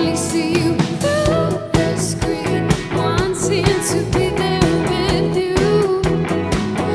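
Live pop band playing a song, with a drum kit keeping a steady beat under guitars and a melodic line.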